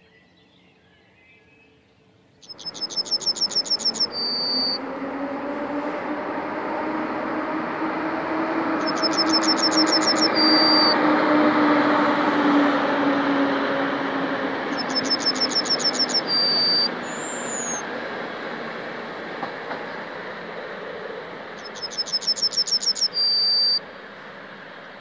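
After about two seconds of near silence, an EP07 electric locomotive hauling a passenger train passes. Its running noise swells to a peak and fades, with a low hum that sinks slightly in pitch as it goes by. A songbird sings a short rapid trill ending in a held high note about every six or seven seconds, and this is the loudest sound.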